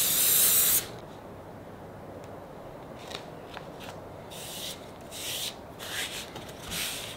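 Aerosol spray adhesive hissing in one short burst, then a hand rubbing a paper template flat onto plywood in a series of soft brushing strokes.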